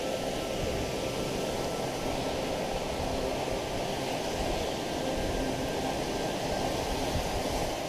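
Steady rush of a fast-flowing woodland stream tumbling over rocks, with faint background music underneath.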